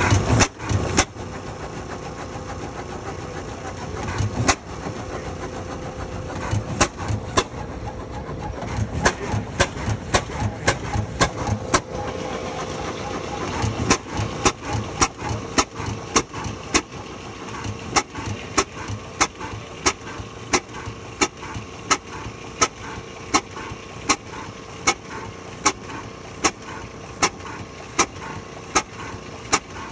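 25 HP Field & Brundage single-cylinder hit-and-miss engine with a cam-stopper governor running, its exhaust giving sharp pops. The pops come sparse and uneven at first, then settle into an even beat of about one and a half a second from about halfway through.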